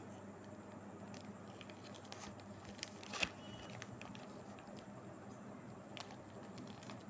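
Foil drink-mix packet being handled, with faint crinkling and a few sharp rustles, the loudest about three seconds in, over a steady low background hiss.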